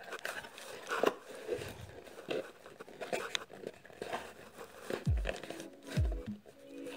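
Paper-covered cardboard box and its lid being handled: light rustling, crinkling and small knocks of cardboard. Background music with falling low notes comes in about five seconds in.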